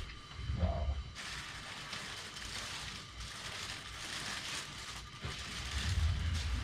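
Rustling of clothing and handling on a treatment table as a patient is positioned, from about a second in for several seconds, with low dull bumps near the start and near the end.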